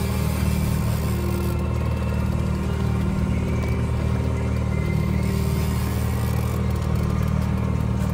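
Mercury outboard motor running steadily at trolling speed, an even low hum with no change in pitch.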